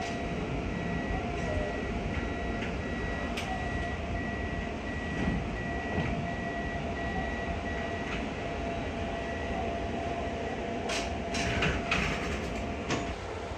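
Toei 10-000 series electric train running, heard from inside the driver's cab: a steady rumble with a steady high tone and a lower hum over it. Near the end there are a few knocks and rustles as the camera is handled.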